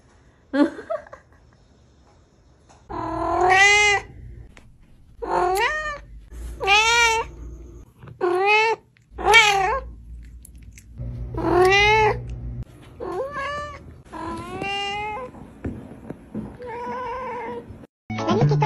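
Domestic cats meowing: about ten drawn-out meows, each rising and then falling in pitch, coming roughly one every second or so.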